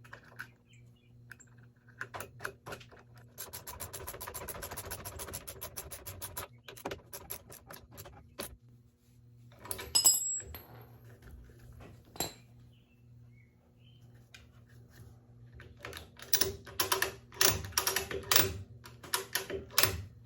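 Metal hardware being worked with hand tools while bolting a retractable ratcheting tie-down onto a boat trailer: a run of rapid, even ratchet clicks lasting about three seconds, a sharp metallic clank that rings briefly about ten seconds in, and a quick cluster of metal clicks and knocks near the end.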